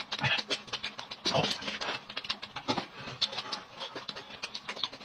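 Two people eating boiled dumplings noisily, with wet slurping, chewing and breathing, and many short clicks of chopsticks and a spoon against the dishes.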